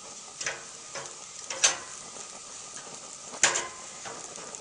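Steaks sizzling on an outdoor grill: a steady hiss broken by three sharp pops, the loudest about three and a half seconds in.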